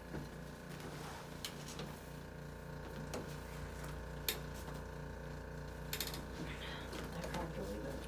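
A machine hums steadily with an even pulse about three times a second, while a few sharp clicks come from the padded treatment table as a patient turns over onto her back.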